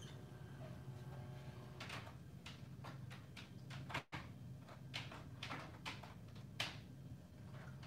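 Light, irregular clicks and knocks, about a dozen over several seconds, from HO-scale model passenger cars being handled and coupled on the track, over a steady low hum.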